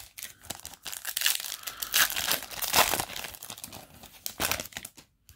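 Foil trading-card booster pack being torn open and crinkled in the hands, a dense crackling that is busiest in the first half and comes again briefly near the end.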